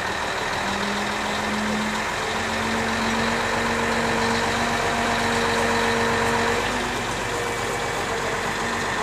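Truck-mounted crane's engine running steadily, with a held hum that steps up in pitch about a second in.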